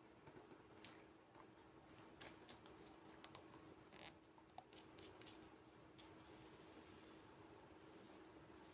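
Faint scattered clicks and ticks of small objects being handled, with a longer hissy rustle about six seconds in, over a low steady hum.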